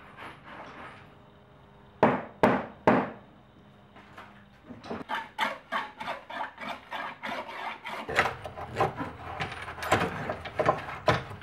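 Hand tools knocking, scraping and rattling on a cluttered workbench. Three sharp knocks come about two seconds in, then a quick run of clicks and rattles that grows busier toward the end.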